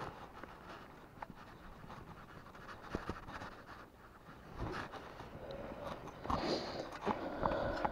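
Soft scratching and rustling of hands working in a landing net's mesh around a landed trout, with scattered light clicks. It grows louder and busier in the second half.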